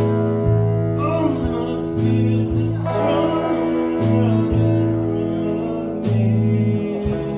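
Music: held chords over a bass line that changes note every second or so, with a singing voice.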